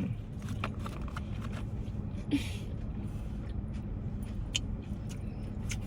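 Close-up chewing of a grinder sandwich: scattered wet mouth clicks and a short crunchy bite about two seconds in, over a steady low hum.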